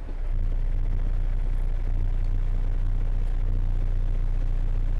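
Freightliner M916A3 6x6 tractor's Detroit Diesel Series 60 engine running with a steady low drone, heard from inside the cab. It grows louder a fraction of a second in, then holds at an even pitch.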